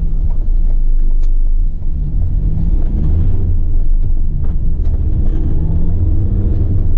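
2017 Ford Transit tipper's diesel engine heard from inside the cab as the van pulls away: a steady low rumble, with the engine note rising as it accelerates about five seconds in.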